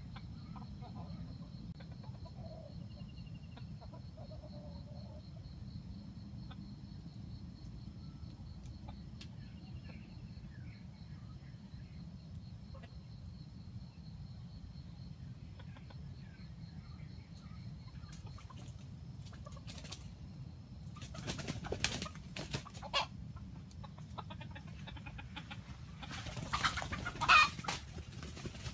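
Red junglefowl rooster clucking in the undergrowth. Faint short calls come early on, then two louder bursts of clucking, one about two-thirds of the way through and one near the end, over a steady low background hiss.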